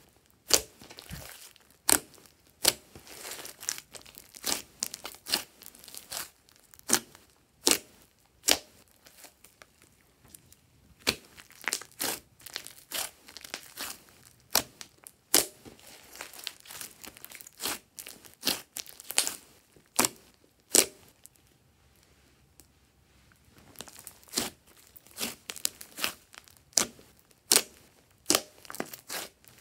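Hands kneading, poking and stretching glossy slime: irregular sharp pops and crackles of trapped air bubbles bursting, with a short lull about two-thirds of the way through.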